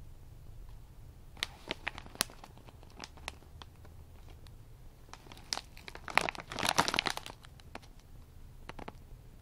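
Plastic snack bag of Party krong krang crinkling as it is handled and turned: a few sharp crackles about a second and a half in, then a longer, louder crinkle around six to seven seconds in, and a couple more near the end.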